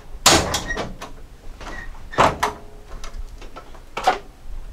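The hood of a 1999 Jeep Cherokee XJ being popped and raised: three separate clunks, the first about half a second in and the loudest, the last shorter and fainter.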